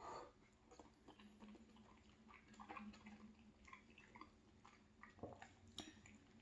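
Faint chewing of orecchiette pasta: soft, scattered mouth clicks and smacks, a little louder about five seconds in.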